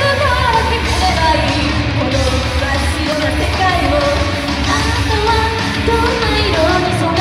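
Live idol-pop performance: several women's voices singing over a loud, continuous backing track with heavy bass, played through the stage PA.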